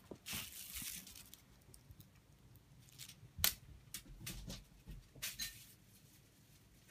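Crinkle ball crinkling in several short bursts as it is tossed and chased across the floor, with one sharp tap about three and a half seconds in, the loudest sound.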